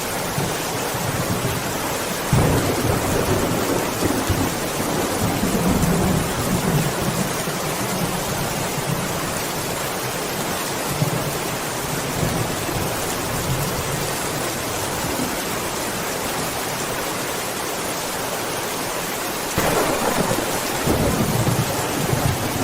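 Steady rain falling, with rolling thunder: a long rumble starting about two seconds in and fading over several seconds, and another roll starting near the end.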